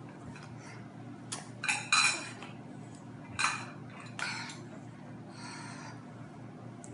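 Tableware clinking and clattering several times as a toddler handles a cup and plate at the table, the loudest clatter about two seconds in, over a low steady hum.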